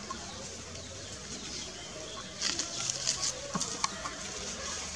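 Dry grass and twigs rustling and crackling as a baby monkey and its mother shift among them, in a burst of quick crackles for about a second and a half starting about halfway through, over a steady outdoor background.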